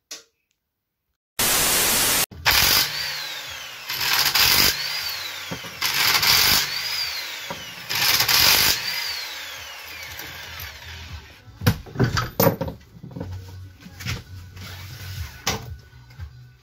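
Power impact wrench spinning off wheel nuts in four short bursts about two seconds apart, each ending in a falling whine as the motor runs down; then loose nuts and tools clatter on the floor. A short loud burst of noise comes about a second and a half in.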